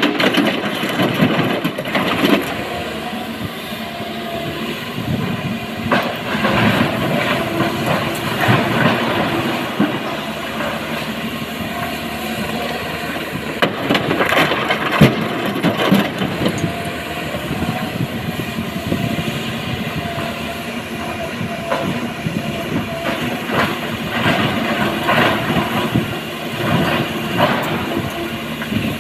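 SANY SY225 hydraulic excavator's diesel engine running steadily under load while rocks clatter and bang into a dump truck's steel body as the bucket unloads. The rock clatter comes in several bursts, the heaviest about halfway through.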